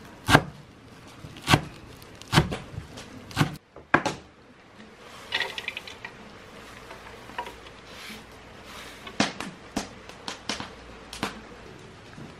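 Kitchen knife chopping fresh herbs on a wooden cutting board, with single sharp knocks about once a second. About five seconds in comes a brief scrape as the chopped greens are pushed off the board into a metal bowl, and a few more knocks follow near the end.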